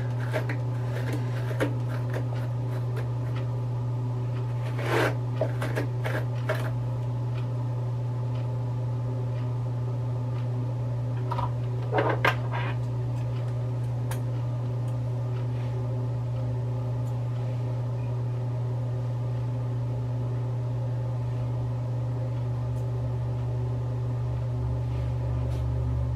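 Steady low hum of a bathroom exhaust fan, with a few brief rustles and clicks of hands and a hair clip working through hair.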